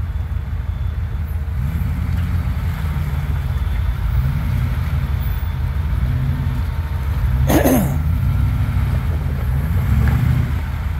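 Off-road 4x4 engine running under load as it crawls an obstacle, the revs climbing and falling a couple of times over a steady low drone. A short, sharp sound with a falling pitch cuts in briefly about seven and a half seconds in.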